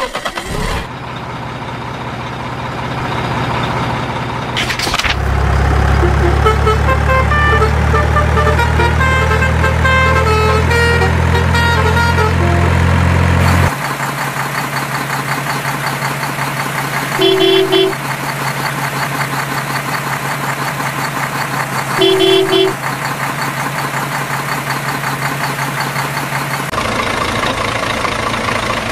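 Dubbed-in truck sound effects: a steady low engine drone that changes character a few times, with a short horn toot about halfway through and another a few seconds later. A stepping series of beeping tones plays over the engine in the first half.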